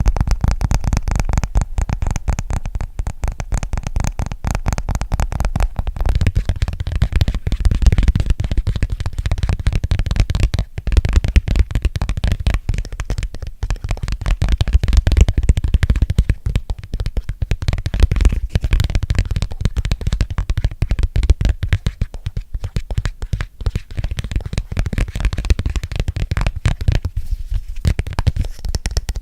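Fast, continuous fingertip and nail tapping close to a sensitive microphone, many quick taps a second with a heavy low thud to each.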